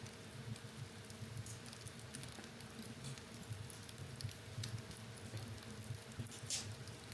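Wood fire in a fireplace crackling, with scattered small pops over a low flutter of the flames, and a short hiss about six and a half seconds in.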